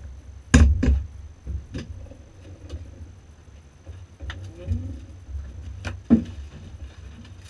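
Handling knocks and clunks at the car's open door as a case of beer is loaded into the cockpit: two loud knocks close together about half a second in, a few lighter knocks, and another loud knock around six seconds, over a low steady rumble.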